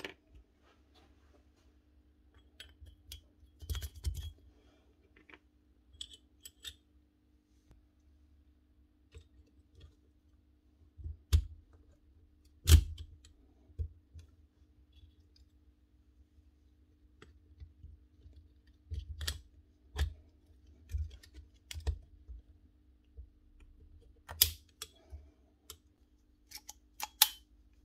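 Metal hammer-drill parts clicking and clinking as they are handled and fitted together by hand, with scattered sharp knocks at irregular intervals, the loudest about 13 seconds in.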